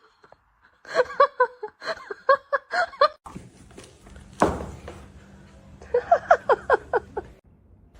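A person laughing in two runs of short, quick, high-pitched bursts, with a single sharp knock about halfway through.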